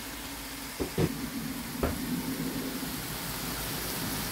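Mixed vegetables sizzling steadily in a frying pan, with three short knocks, two about a second in and one near two seconds.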